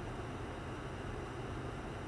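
Steady in-cabin noise of a 1998 Toyota 4Runner stopped in the rain: a low engine idle rumble under an even hiss of rain on the body and windshield.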